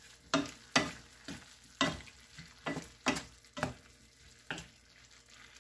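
Wooden spatula stirring shrimp and chayote squash in a nonstick frying pan: irregular scrapes and knocks against the pan, about one or two a second, over a faint sizzle of the food frying.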